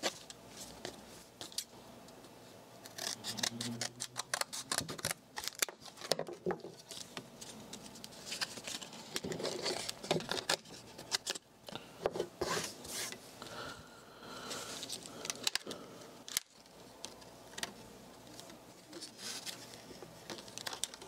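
Scissors snipping through a plastic blister pack and its cardboard backing, followed by the packaging crackling as it is pulled apart by hand: many short, irregular sharp clicks and crinkles.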